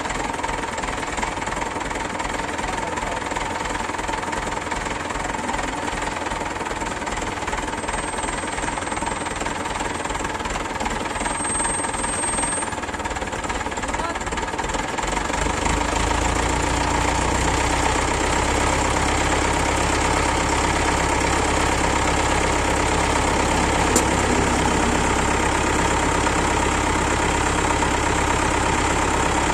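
Heavy vehicle or crane engine running steadily. About halfway through it settles into a deeper, louder drone, and a single click sounds near the end.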